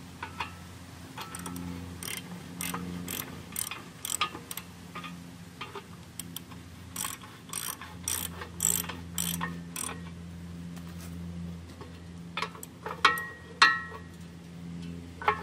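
Socket ratchet wrench clicking in short runs of strokes as a bolt on a cast-iron feed grinder pulley hub is turned. Near the end come a couple of louder metallic clanks that ring briefly.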